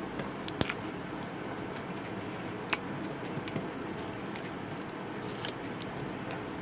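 A few sharp clicks and light crackles of snack packets being handled on a table, over a steady background hiss.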